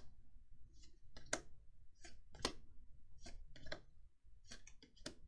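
Faint, irregular crisp clicks and snaps of Magic: The Gathering trading cards being flicked through by hand, about a dozen in all.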